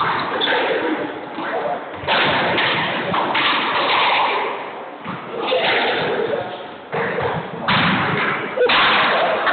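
Squash ball thudding against the court walls and floor, several sudden hits, with voices in the background.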